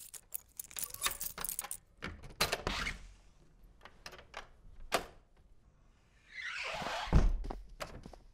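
Door sound effects: a run of clicks and knocks as an apartment door is opened, then a rush of air and a heavy thud as the door swings shut about seven seconds in.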